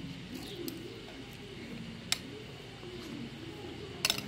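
Quiet eating: a spoonful being chewed, a single sharp click about halfway, and a metal spoon clinking and scraping in a glass bowl near the end.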